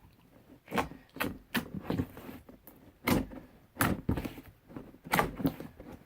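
Homemade glitter slime being poked and stretched by hand, giving a string of short sharp pops at irregular intervals: the "pokey noise" of a pokey slime.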